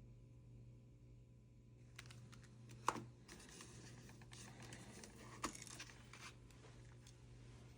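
Faint hand-handling noise of small objects: rustling from about two seconds in, with two sharp clicks, the louder one about three seconds in and another about five and a half seconds in.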